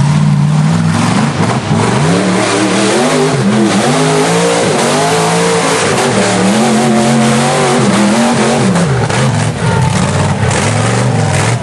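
Rock bouncer buggy's engine revving hard, its pitch climbing and dropping again and again as the throttle is worked on the climb.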